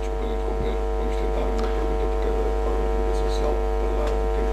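Steady electrical mains hum in the audio feed: a low drone with a stack of higher buzzing overtones, unchanging throughout.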